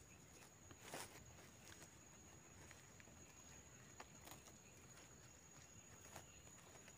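Near silence, with faint scattered rustles of leaf litter and a few small clicks as a gloved hand picks small white mushrooms from the forest floor, over a faint steady high tone.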